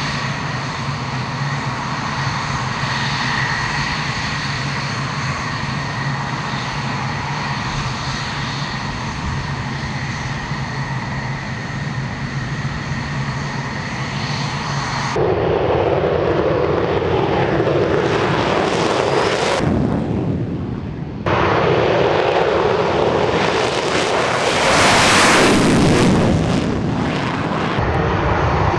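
Fighter jet engines running with a steady high whine. After abrupt cuts about 15 and 20 seconds in, louder jet engine noise swells to its loudest about 25 seconds in, then eases off.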